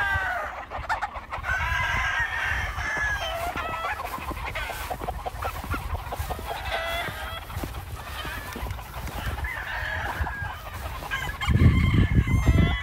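Several gamecocks crowing across the yard, one call overlapping the next, with a louder low rumble near the end.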